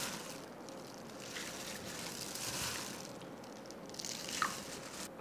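Soft, wet squelches of marinated pork strips being scooped by a gloved hand out of a steel bowl and dropped into a plastic container, several times.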